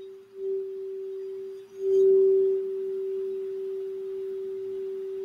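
Crystal Alchemy crystal singing bowl tuned for the throat chakra, played with a mallet and ringing one sustained pure tone. The tone dips twice and swells louder again about two seconds in, then rings on steadily.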